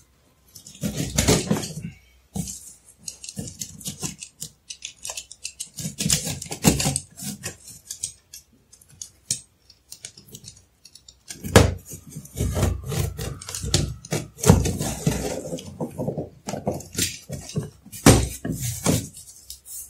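Packing tape on a cardboard shipping carton being slit and worked open with a small hand cutter: irregular scraping, scratching and rustling of blade, tape and cardboard, busier and louder in the second half.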